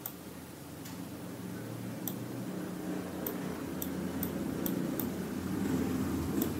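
Computer mouse clicking: about a dozen short, sharp clicks at an irregular pace, over a low background hum that grows louder near the end.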